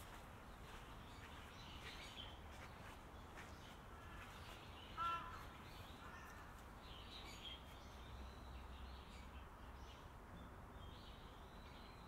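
A crow caws once about five seconds in, the loudest sound, over quiet outdoor ambience with faint small-bird chirps.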